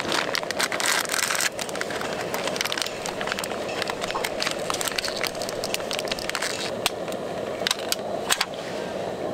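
Thin clear plastic food bag crinkling and crackling in quick irregular bursts as it is pulled open and peeled off by hand, over a steady low background noise.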